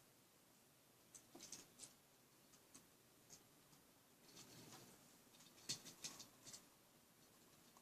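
Near silence with faint, scattered small clicks and taps, a few about a second in and a cluster around six seconds in.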